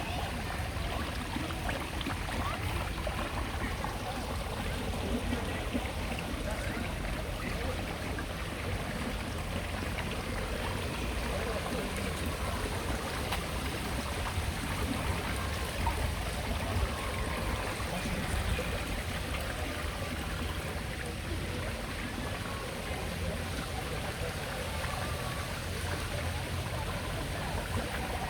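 A small stream of water running and trickling steadily.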